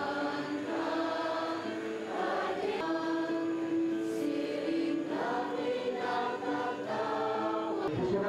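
A congregation singing a hymn together, many voices on long held notes.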